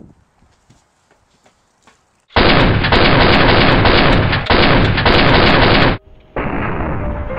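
Loud, dense burst of gunfire sound effect starting about two seconds in and cutting off abruptly, followed shortly after by a second, slightly quieter stretch of the same kind of noise.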